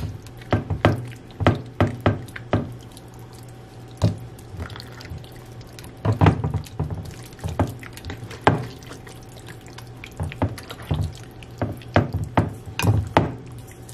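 Wet squelching and smacking of hands rubbing an oily garlic-and-sofrito marinade into a raw whole chicken in a glass baking dish, in irregular bursts, over a steady low hum.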